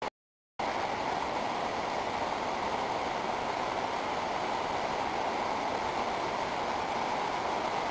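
Steady rushing of a muddy mountain river, starting about half a second in.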